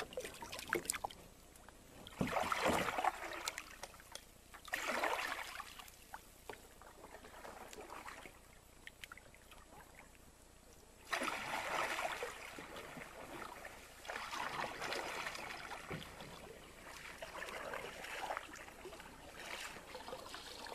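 Kayak paddle strokes in calm river water: the blades dipping and pulling with splashes and drips, a stroke every couple of seconds, busier in the second half.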